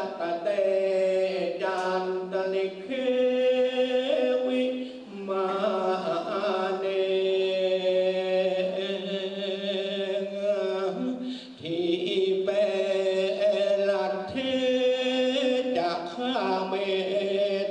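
A man's solo su khwan blessing chant, sung into a microphone and played over a loudspeaker. It runs as long, held, melodic notes, broken by short breaths about five, eleven and fourteen seconds in.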